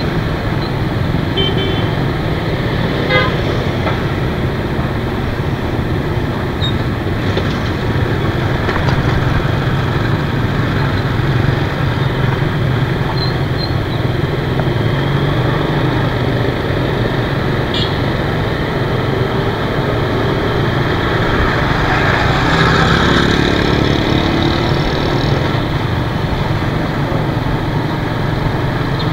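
Motor scooter riding through busy motorbike traffic: a steady engine and road rumble, with the short toots of motorbike horns at times. About three-quarters of the way through, a louder engine sound rises in pitch for a couple of seconds.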